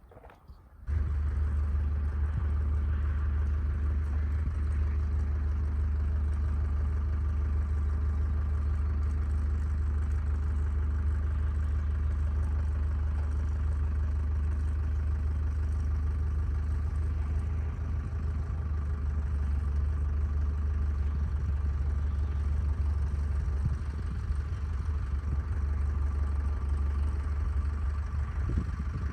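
An engine running steadily at idle with a deep, even hum; it comes in suddenly about a second in.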